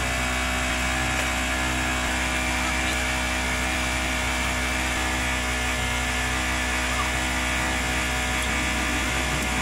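A steady machine hum and whir that holds at one even level throughout, with a low hum under a constant hiss.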